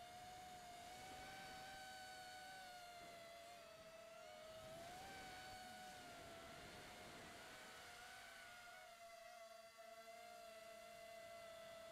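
5-inch FPV quadcopter's brushless motors and propellers heard faintly through its onboard camera's microphone: a steady whine that wavers slightly in pitch with throttle changes.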